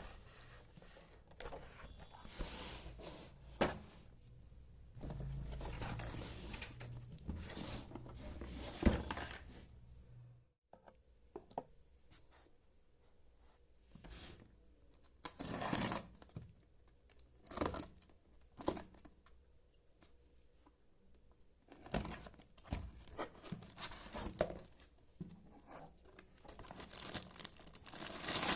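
Toy packaging being torn open and crinkled by hand, with scattered short clicks and taps from handling the pieces.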